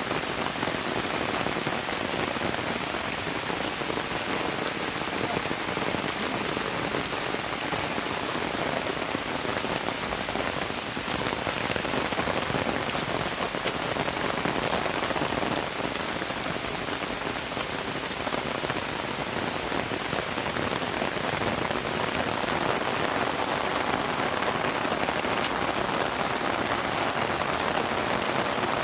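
Heavy rain falling steadily, an even hiss of downpour dotted with many small drop impacts.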